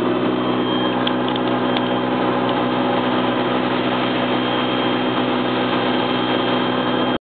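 Car wash machinery running, heard from inside the car's cabin: a steady, even rushing noise with a constant hum and a thin high tone, cutting off suddenly near the end.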